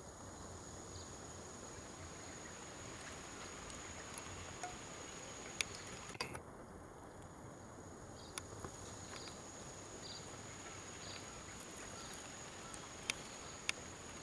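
Faint outdoor ambience carried by a steady, high-pitched insect drone. A few sharp clicks stand out above it, and some faint short notes come in the middle stretch.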